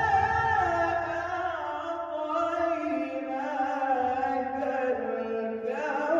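Melodic Quran recitation: a single voice chanting long held notes that glide and step between pitches.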